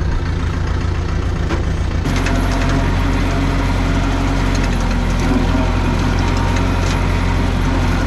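UHI compact tractor's engine running with the PTO-driven slasher spinning behind it. About two seconds in the sound shifts and a steady hiss joins the engine hum.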